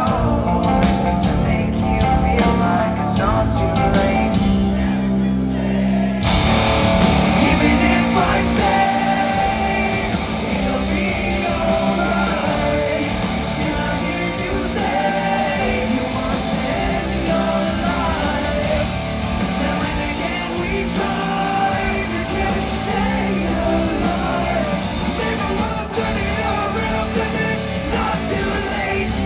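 A rock band playing live, with guitars, drums and singing. About six seconds in, the full band comes in and the sound turns fuller and brighter.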